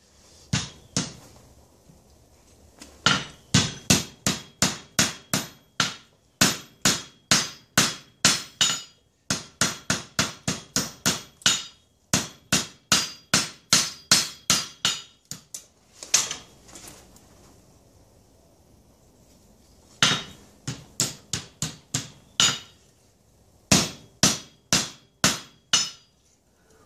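Hand hammer striking a red-hot bar of bundled chainsaw chain on an anvil: runs of quick blows about two to three a second, each with a short metallic ring, broken by brief pauses.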